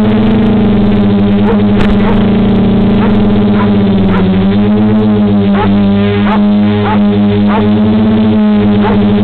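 DJI F450 quadcopter's four DJI 2212 920KV motors and propellers humming in flight: a loud, steady droning buzz whose pitch sags a little about four seconds in and then recovers.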